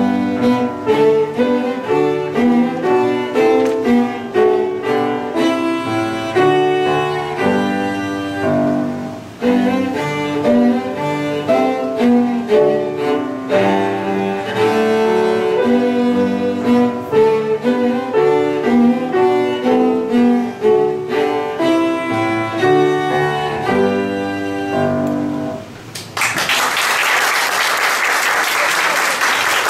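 Cello playing a classical piece with piano accompaniment, ending on a held note about 26 seconds in. An audience then applauds.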